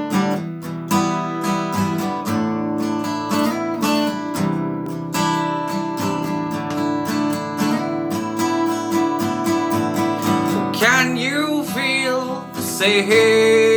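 Acoustic guitar strumming chords in a steady rhythm as a song's introduction; a singing voice comes in near the end.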